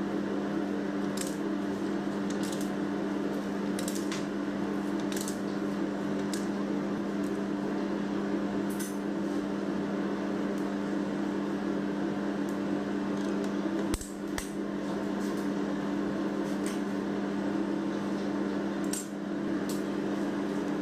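Light clicks and taps of a metal palette knife against a foil cake board and turntable while icing is smoothed, with one sharper knock about fourteen seconds in, over a steady electrical hum.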